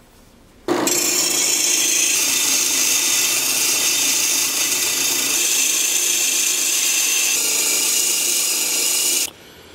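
Drill press spinning a purpleheart wood screwdriver handle while a handsaw blade is held against it, the teeth cutting into the spinning hardwood with a steady hiss over the motor's hum. It starts suddenly about a second in and cuts off suddenly near the end.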